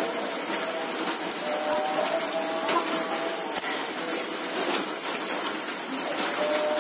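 Wood fire burning under fish grilling on a wire rack: a steady hiss of sizzling and burning with faint crackles.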